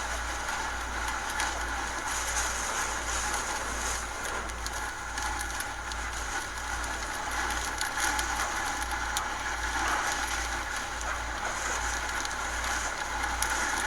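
Hurricane wind and rain: a steady rush of storm noise with scattered rattling clicks and an uneven low rumble of wind buffeting the microphone.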